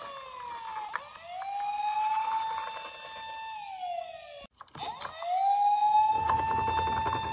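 Toy police car's electronic wail siren, its pitch sliding slowly down and back up several times, with a brief break just past halfway. From about six seconds in, a low rumble of the toy's wheels rolling down a wooden ramp runs under it.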